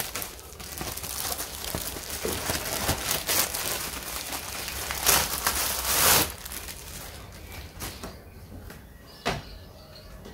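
Rustling and knocking of equipment being handled and shifted on a workbench, loudest in two swells about five and six seconds in.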